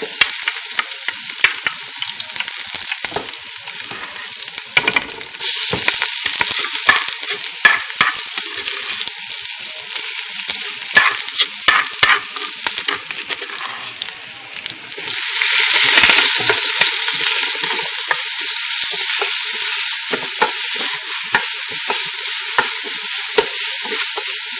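Pounded lemongrass and chili herb paste sizzling in hot oil in a pot, stirred with a utensil that clicks and scrapes against the pot. The sizzle gets louder about two thirds of the way in.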